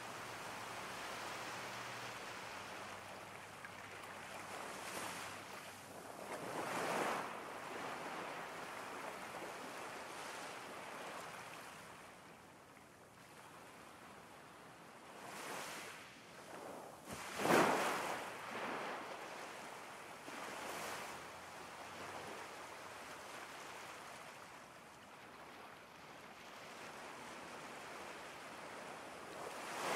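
Ocean waves crashing: a steady wash of surf that rises and falls, with several waves breaking more loudly, the loudest about halfway through.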